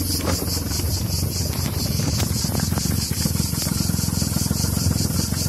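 Jaguar XJ6 4.2's XK straight-six engine idling steadily after a cold start, heard at the rear by the exhaust tailpipes.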